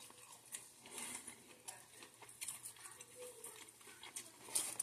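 Faint chewing of a bite of chicken sandwich: soft, scattered clicks at a low level. Near the end comes a brief louder rustle as a hand handles the cardboard sandwich box.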